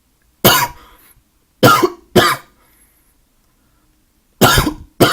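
A person with a bad cough, coughing hard five times: a single cough, then a quick pair, then another quick pair near the end.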